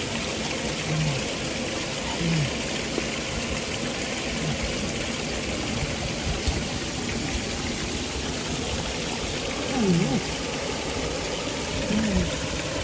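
Steady rushing noise of a waterfall, with a few brief low pitched sounds at intervals, one about a second in, others near the middle and near the end.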